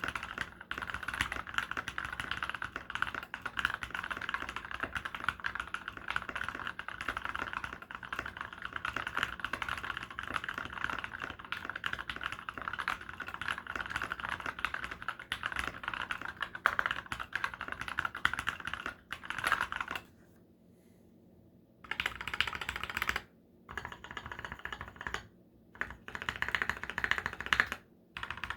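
Typing on a GK64 mechanical keyboard with lubed Milky Gateron Yellow linear switches, MT3 keycaps and neoprene dampening: a dense, continuous stream of key clacks. The typing stops for about two seconds a little past two-thirds of the way through, then resumes in shorter bursts with brief pauses.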